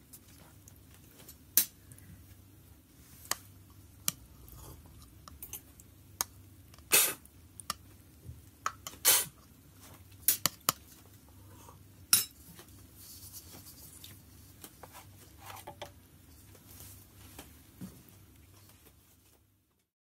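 Scattered clinks and knocks of ceramic and glass pour-over coffee ware being handled, over a low steady hum. The loudest knocks come about seven, nine and twelve seconds in.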